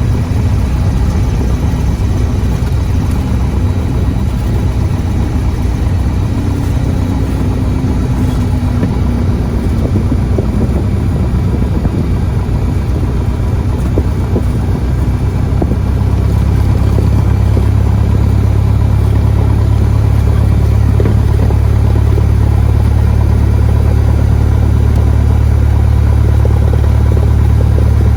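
Cessna 172 cabin noise: the piston engine and propeller give a steady, loud, low drone, which grows louder and heavier about sixteen seconds in and holds there.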